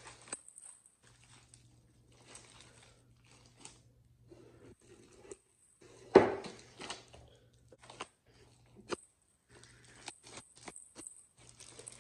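Sticky slime made from clear body wash and baking soda being kneaded and stretched by hand: soft, scattered crackling and squishing, with one much louder squelch about six seconds in as it is pulled into a container.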